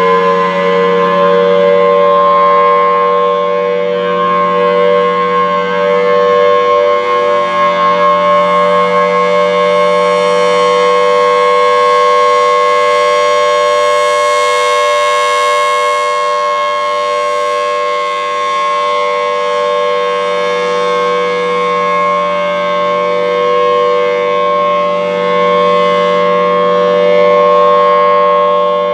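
Federal Signal Thunderbolt 1000T outdoor warning siren sounding its steady Alert tone, set on chopper level 3 for a slightly lower pitch. The pitch settles at the very start and then holds, with a slow rise and fall in loudness.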